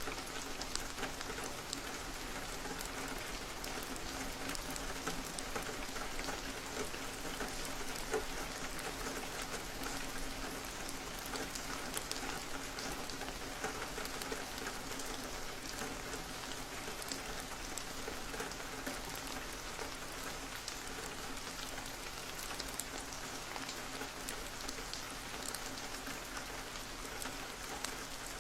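Steady rain falling, with many small drops ticking and pattering on a surface.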